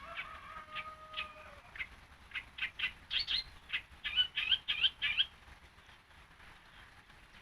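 Yellow-vented bulbul (trucukan) singing: scattered short chirps build into a fast, bubbly run of notes, loudest from about three to five seconds in. A steady tone sounds under the first second and a half.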